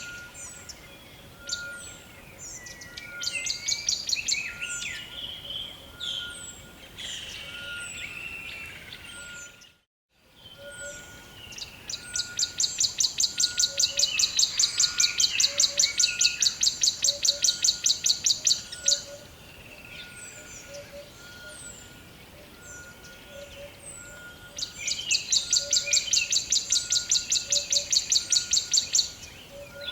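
Rainforest ambience of assorted birds chirping and whistling. Twice a rapid high trill pulses about seven times a second for several seconds, over a faint, steady, broken tone. The sound drops out to near silence for a moment about ten seconds in.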